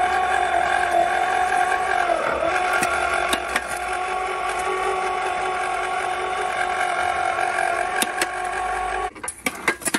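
Electric motor of a homemade water-well drilling rig running with a steady whine as it turns the soil auger through a chain and sprockets; the pitch sags briefly about two seconds in as the auger takes load. The motor stops about nine seconds in, followed by a few sharp knocks.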